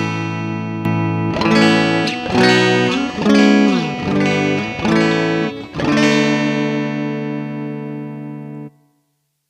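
A guitar played as a tone check: sustained chords and notes with sliding, bent pitches in the middle, then one long ringing chord that is cut off suddenly near the end.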